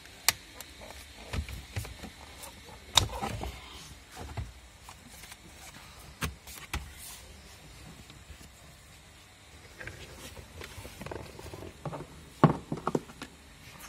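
Sharp plastic clicks and knocks of car interior trim being dismantled on a Renault Sandero. The instrument cluster's wiring connector is unplugged at the start, then a screwdriver pries the plastic A-pillar trim off its clips, with a burst of loud clicks near the end.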